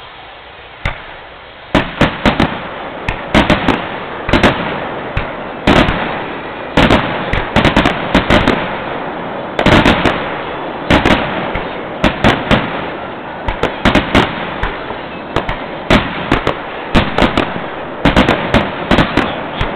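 Fireworks going off in a rapid barrage: many sharp bangs, several a second, over a rumbling haze of crackle, starting with a few single bangs and turning dense about two seconds in.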